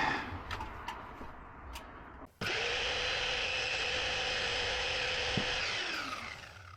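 Electric power saw switched on: the motor starts suddenly, runs at steady speed for about three and a half seconds, then winds down with a falling whine as the blade coasts to a stop.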